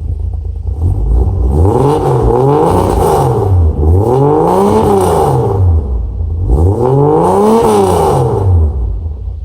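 An engine revved up and down about four times, its pitch rising and falling in smooth arches over a steady low rumble.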